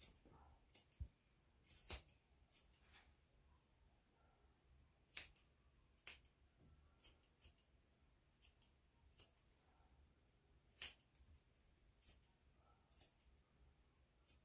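Grooming scissors snipping a dog's fur around the paw: about twenty short, crisp snips at an uneven pace, a few noticeably louder than the rest.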